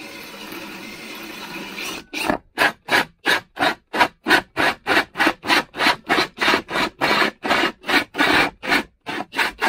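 Hole saw in a cordless drill cutting into a chipboard panel. A steady grinding for about two seconds, then a rhythmic rasp of about three to four strokes a second.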